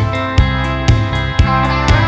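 Music with guitar over a steady beat of about two beats a second.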